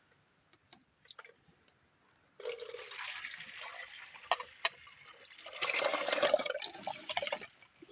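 Liquid being poured in two spells of a couple of seconds each, the second louder, with a few sharp knocks in between.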